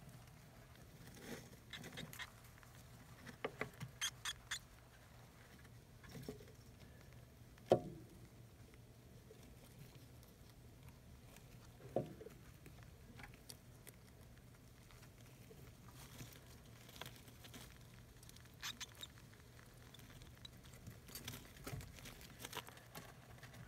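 Faint rustling and crinkling of shredded newspaper bedding as an African soft-furred rat shifts in her nest over her newborn pups, with scattered small clicks and two soft knocks.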